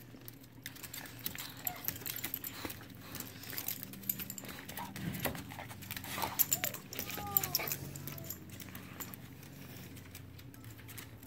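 Two dogs, a Yorkshire terrier and a larger black-and-tan dog, moving and playing at close range, with a run of clicks and rattles and a few short whines past the middle.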